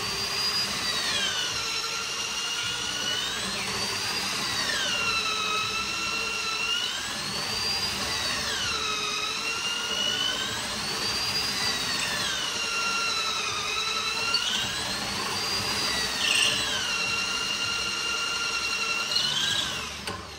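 Corded electric drill with a long bit boring into a solid hardwood slab. The motor's whine dips and climbs back in pitch every two to three seconds as the bit works through the wood.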